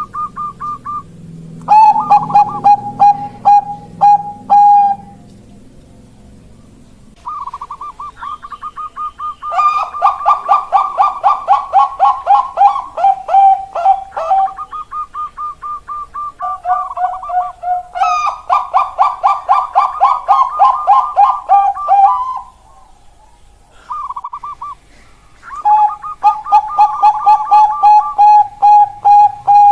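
Zebra dove (a Thai-bred 'Bangkok' perkutut) singing: four bouts of rapid staccato cooing notes, each opening with a short held note, with brief pauses between the bouts.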